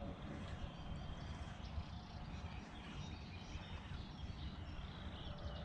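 Faint outdoor ambience: small birds chirping over a low, steady rumble of wind on the microphone.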